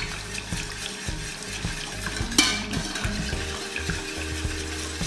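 Wire whisk beating a thick roux-and-milk béchamel in a stainless steel saucepan, its wires scraping and tapping against the pot in a quick, busy rhythm as it is stirred hard to break up the lumps. One louder knock of the whisk on the pot comes about two and a half seconds in, and a faint steady hum sits under the stirring near the end.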